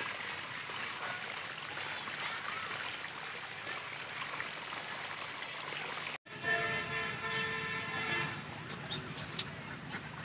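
Muddy water rushing steadily down a narrow earthen channel. About six seconds in it cuts off abruptly, and a single pitched honk lasting about two seconds follows.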